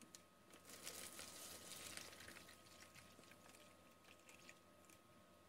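Faint cold water poured from a plastic measuring cup into a foil ration pouch. It is a little louder from about half a second to two seconds in, then tapers off.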